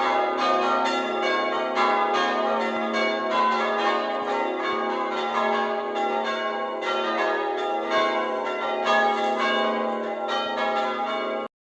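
Church bells ringing, strike after strike overlapping into a continuous peal; the sound cuts off abruptly near the end.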